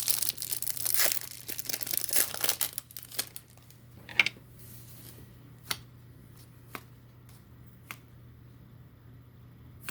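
A trading card pack wrapper crinkling and tearing open for about three seconds, then a few separate light clicks.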